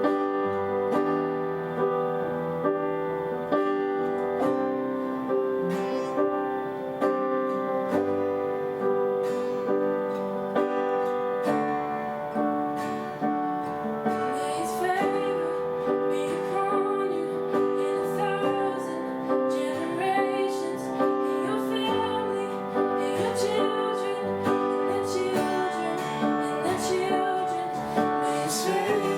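Slow worship music led by piano or keyboard, held chords ringing on without sung words.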